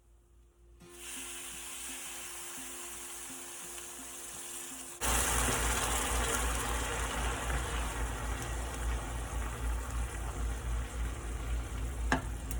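Rice and garlic sizzling in hot oil in a pan, faint at first and then suddenly much louder about five seconds in.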